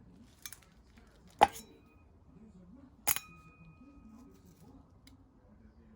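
Two sharp metallic clinks, about a second and a half apart, as small metal tools or screws knock together while the underguard screws are being undone. The second clink rings on briefly.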